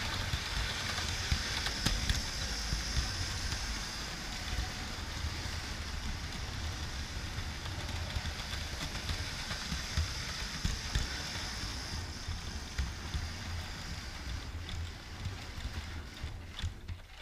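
Metal model train running on its track: a steady rolling rumble of wheels on rails with scattered clicks, heard from right behind the coaches as it travels.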